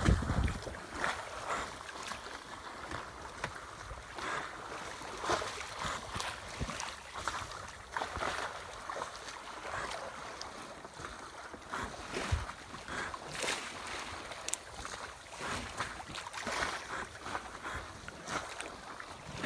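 Water lapping and slapping irregularly against a small yacht's hull, with wind on the microphone.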